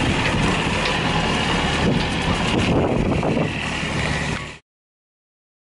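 Universal M25XPB marine diesel idling steadily at about 1500 RPM in reverse, its wet exhaust discharging cooling water in big gulps now that the raw-water pump has a new impeller. The sound cuts off suddenly about four and a half seconds in.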